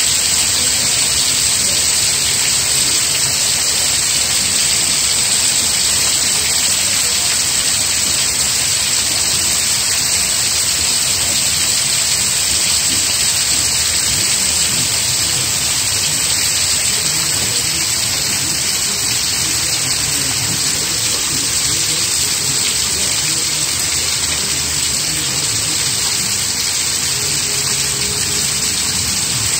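Rain falling steadily: a dense, even hiss that does not let up.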